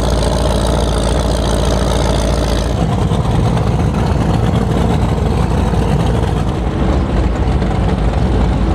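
Powerboat engines running at low speed, a steady deep engine sound that changes character about three seconds in as a different boat passes.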